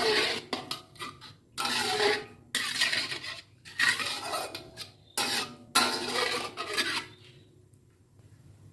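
Kitchen utensil scraping and clinking against cookware in a series of short strokes, as in stirring or mixing, stopping about seven seconds in.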